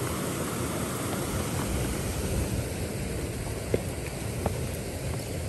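Wind buffeting the microphone, giving a steady rushing noise with an uneven low rumble, and a couple of light clicks a little past halfway.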